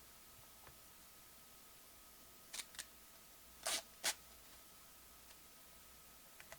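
Faint handling of trading card packaging: four short crisp crinkles and clicks between about two and a half and four seconds in, the longest one near the middle.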